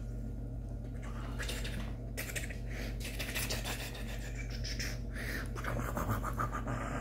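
Irregular rustling, scratching and rubbing as a poodle puppy's curly fur and the hands holding it brush against the microphone while it is cuddled.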